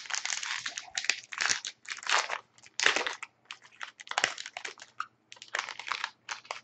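Plastic wrapper of a sealed hockey card pack being torn and crinkled open by hand: irregular crackling and rustling in quick, uneven bursts.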